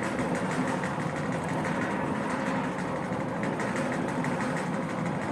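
Automatic pallet stretch wrapper running mid-cycle: the turntable drive and powered pre-stretch film carriage give a steady mechanical hum that holds even throughout.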